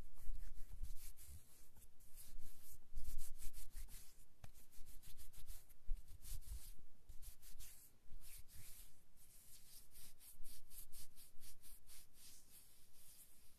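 Ear-licking sounds close on a binaural microphone: rapid wet mouth smacks and clicks in clusters, with low rubbing and bumping against the microphone.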